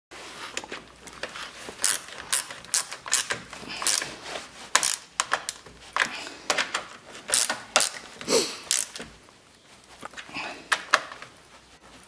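Socket ratchet clicking in irregular runs of sharp ticks as a mounting bolt is turned down.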